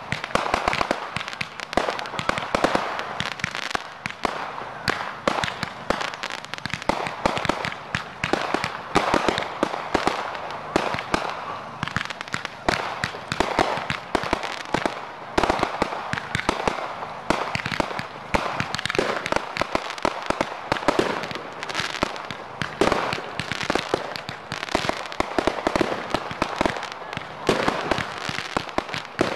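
A firework display: a continuous barrage of cracks and bangs, several a second, with no break.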